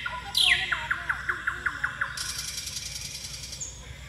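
Small birds calling outdoors: a couple of high notes sliding down, a quick trill of repeated notes, then a high buzzy rattle lasting about a second and a half in the middle.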